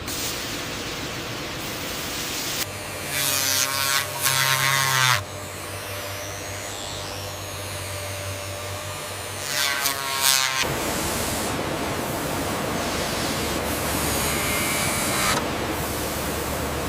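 Steady machine noise with a low hum, broken twice by a louder buzzing whir: once for about two and a half seconds starting around three seconds in, and once for about a second around ten seconds in.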